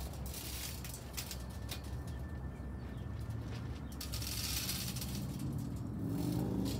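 A dove cooing briefly near the end, over a steady low rumble and scattered faint clicks.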